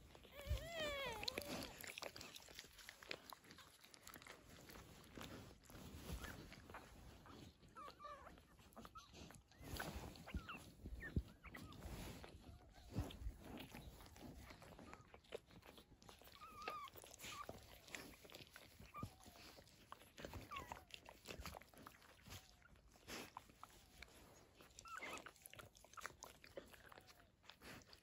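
Newborn puppies nursing: faint suckling and rustling with occasional high squeaks and whimpers, a quick run of squeals about a second in.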